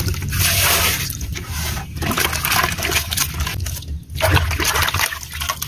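Water poured from a plastic dipper into a metal pot of frogs being rinsed, splashing and sloshing, broken by a few short pauses between pours.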